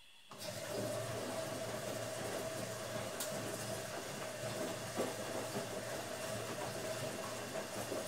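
Automatic washing machine starting up, then running steadily: a rushing hiss over a low hum and a steady mid-pitched whine, with an occasional light knock.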